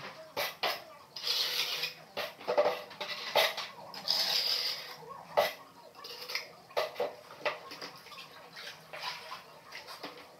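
Sharp clicks and knocks of hard material against ceramic tile during tile setting, with a few rough scrapes of about a second each.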